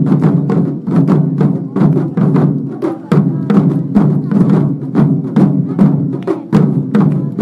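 Japanese taiko drum ensemble playing a fast, driving rhythm, many sharp drum strikes a second with crisp wooden clicks among them.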